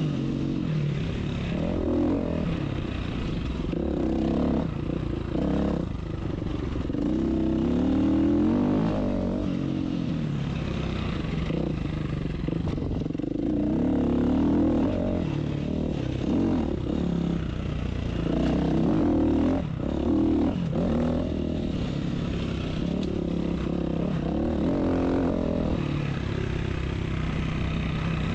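Dirt bike engine revving up and down over and over as it is ridden, its pitch rising and falling with the throttle. Occasional short knocks and rattles are heard along with it.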